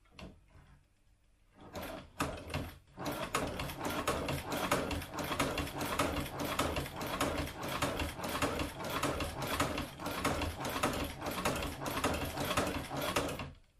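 Sfeomi hand-cranked cobbler's sewing machine stitching through about 8 mm of leather as its flywheel is turned by hand. A few slow, separate strokes give way to a steady mechanical clatter of about three strokes a second, which stops abruptly just before the end.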